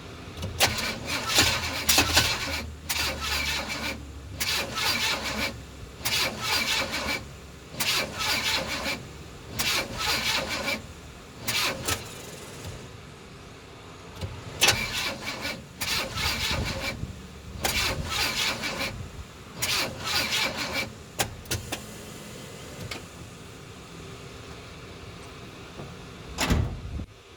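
Car engine being cranked by its starter in repeated short bursts, about one a second, in two long series with a short pause between. It does not fire, a crank-no-start condition. A single thump comes near the end.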